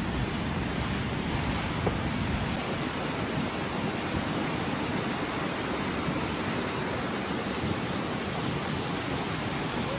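Steady rushing of fast-flowing floodwater, an even noise without breaks, a little heavier in the low end for the first two seconds or so.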